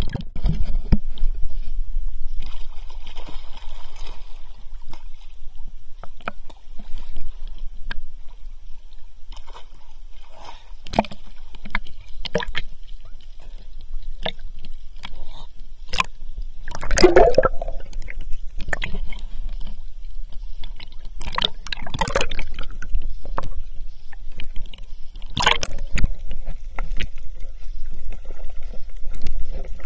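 Sea water sloshing and splashing around a waterproof camera held by a swimmer as it dips under and breaks the surface, with a steady low rumble and scattered sharp clicks and pops. Louder splashes come about two-thirds of the way in and again near the end.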